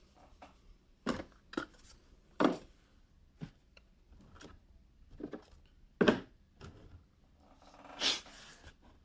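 Irregular knocks, taps and rustles of objects being handled, about eight in all, with the loudest about two and a half, six and eight seconds in.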